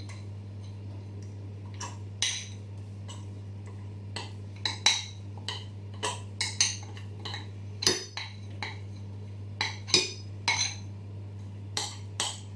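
A utensil scraping and tapping against a glass bowl in short, irregular clinks as melted chocolate is scraped out into a glass jug of egg mixture. A steady low hum runs underneath.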